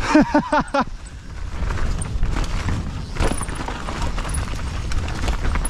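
Mountain bike riding over a dirt trail: tyres rolling with a steady rumble, and many small clicks and knocks from the bike rattling over the ground.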